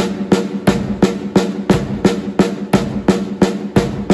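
Snare drum struck with alternating sticks in a steady, even stream of strokes, about three a second, played as triplets.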